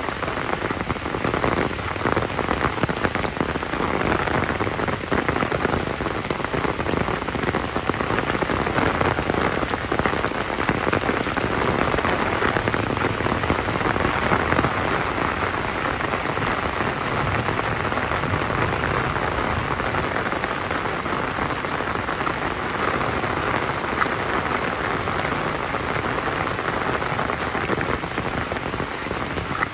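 Steady rain falling, a dense patter of countless drops.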